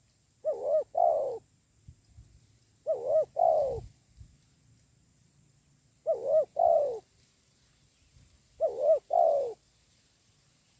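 Spotted dove (tekukur) cooing: four two-note phrases, about one every two and a half seconds.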